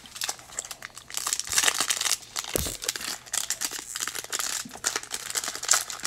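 Foil wrapper of a 2019 Donruss Optic baseball card pack crinkling and crackling as hands work it and tear it open, with a soft thump about two and a half seconds in.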